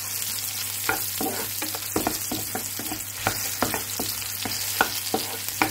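Chopped garlic and sliced red onion sizzling in hot vegetable oil in a nonstick pan, while a wooden spatula stirs them with irregular scrapes and taps against the pan.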